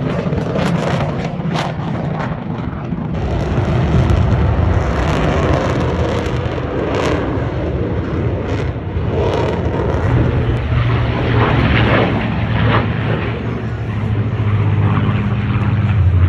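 Aircraft engine noise: a steady rumble with a low hum that grows stronger about two-thirds of the way through, over scattered voices.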